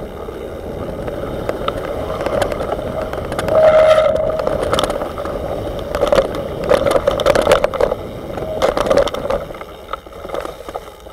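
Mountain bike riding fast down a rough dirt trail, heard from a camera mounted on the handlebars: continuous rushing of wind and tyres with many sharp rattles and knocks as the bike goes over bumps, busiest and loudest in the middle. A droning tone swells and fades along with it.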